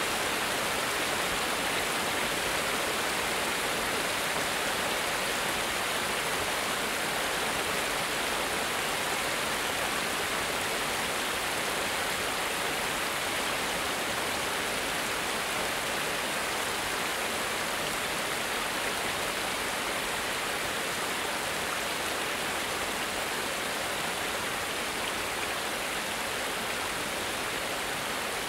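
Water running over a small cascade in a stream: a steady, even rush that does not change.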